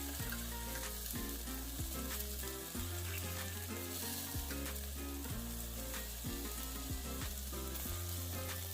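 Pork barbecue sizzling as it cooks, a steady frying hiss with a few small pops and clicks, over background music with held bass notes.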